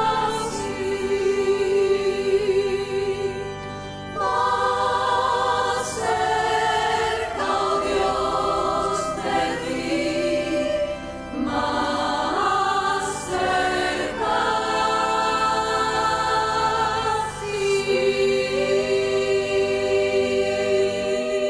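A choir of nuns singing in phrases of long held notes, off-key and out of time. The singing cuts off near the end.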